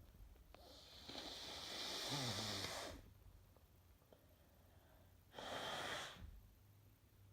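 A woman with a cold breathing forcefully through her congested nose: a long hissing blow of about two seconds with a brief low voiced sound near its end, then a shorter hissing breath about five and a half seconds in.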